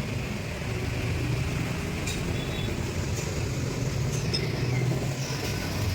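A vehicle engine running steadily with a low rumble, with a few faint light metallic clinks.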